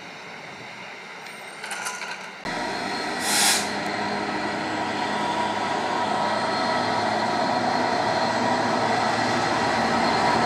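A Class 66 diesel locomotive with a train of tank wagons approaching, its EMD two-stroke engine and wheel noise growing steadily louder. There is a short sharp hiss about a second after the train sound starts, and the sound cuts in suddenly after a few seconds of quieter open-air noise.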